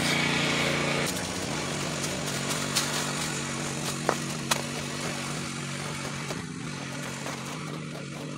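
A small petrol tractor ploughing with a rotavator, its engine running with a steady hum that slowly grows fainter. A few sharp knocks of a hoe chopping into soil come about three to four and a half seconds in.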